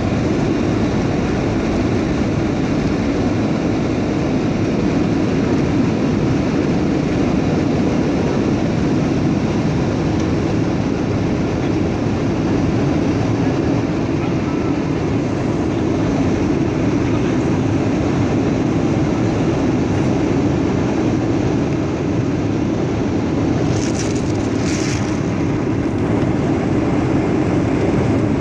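Steady roar of a Boeing 737-900 airliner in flight, heard from inside the passenger cabin: engine and airflow noise, strongest in the low-middle range. Two brief high-pitched sounds come close together near the end.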